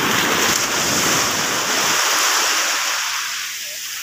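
Water rushing and splashing over a fish net in shallow water, a steady hiss that eases off about three seconds in.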